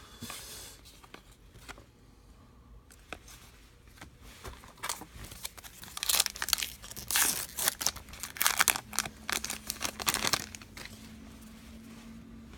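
Trading-card pack wrapper being torn open and crinkled by hand, in a run of rustling and tearing from about the middle of the stretch that dies down near the end.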